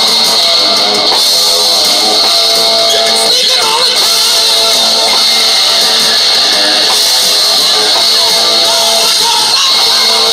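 Music: a rock song with guitar, playing steadily.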